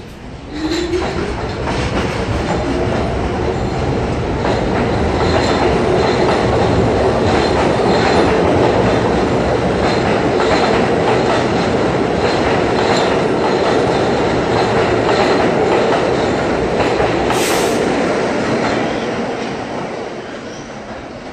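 New York City subway train of R160 cars pulling out of the station and accelerating past. A rising motor whine comes in the first two seconds, then a steady wheel rumble with repeated clicks over the rail joints. A brief high hiss comes about 17 seconds in, and the sound fades as the train leaves near the end.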